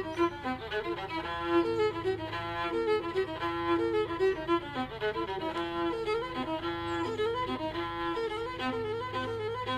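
Fiddle music: a tune of quickly changing notes over a low steady drone.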